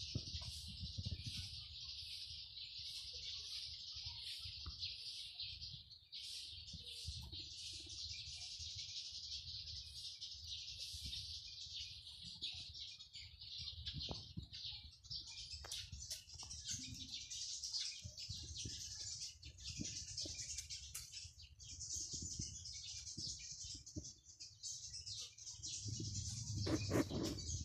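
A steady high-pitched chirping chorus, with a run of short sharp chirps repeating about twice a second in the first half. Low rumbling handling noise lies underneath, with a louder rustle and a few knocks near the end.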